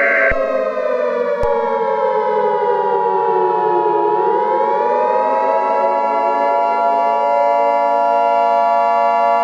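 Civil defense siren winding down in pitch for about four seconds, then winding back up and holding a steady wail. A separate steady electronic alert tone comes in with a click about a second and a half in.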